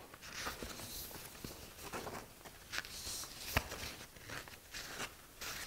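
Faint rustling and handling of paper sheets held in the hands, with small scattered clicks and one sharper click about three and a half seconds in.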